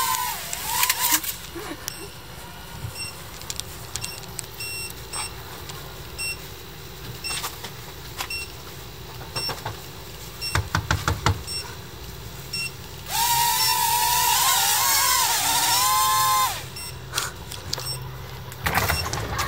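Spacekey DC-014 mini quadcopter's motors and propellers whining, the pitch wavering up and down with the throttle, loudest from about 13 to 16 seconds in. A quick run of clicks comes around 10 to 11 seconds in.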